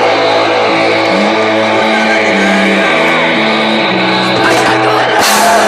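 Hardcore punk band playing live: distorted electric guitar and bass hold long notes that step from pitch to pitch, with a cymbal crash near the end.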